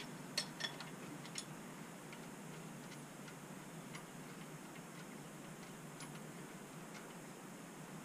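A ratchet on the crankshaft bolt of a 6.4 Hemi short block, turning the crank by hand: a few sharp metal clicks in the first second and a half, then faint single ticks about once a second.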